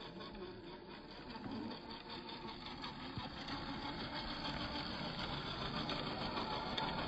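Traxxas TRX-4 RC crawler on Deep Terrain Traxx track units, its electric motor and geared drivetrain whirring as it crawls over grass and dirt. It grows louder as it comes up close.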